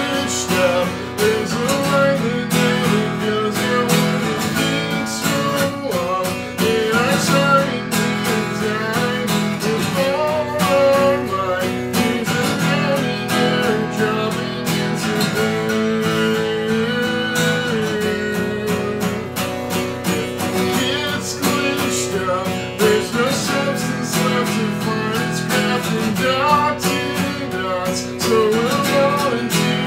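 A man singing over a strummed acoustic guitar.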